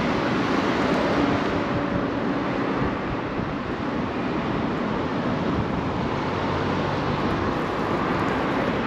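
Steady road traffic noise from cars passing through a wide multi-lane intersection, mixed with wind on the microphone.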